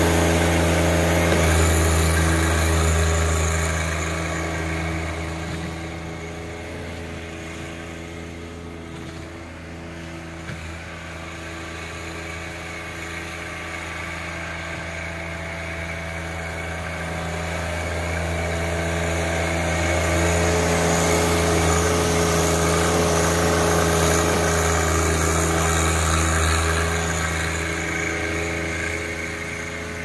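John Deere 1025R compact tractor's three-cylinder diesel engine running steadily while the tractor plows snow with its front loader. It is loud close by, fades as the tractor drives away, swells again for several seconds past the middle, and drops off near the end.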